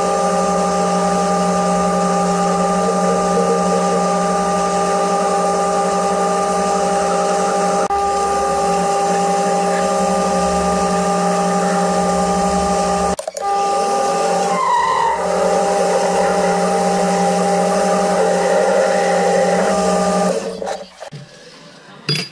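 Small metal lathe running with a steady whine from its motor and gear drive, the chuck spinning a metal workpiece. It shuts down and the sound falls away about twenty seconds in.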